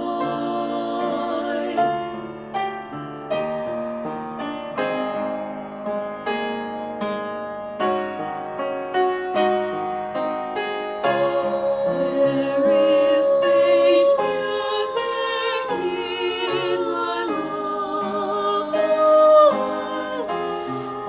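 A small vocal ensemble sings with piano accompaniment, the voices holding long notes with vibrato over the piano's struck chords.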